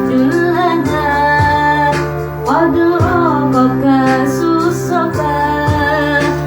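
Female voice singing a devotional song over instrumental backing, with steady low notes and a regular beat.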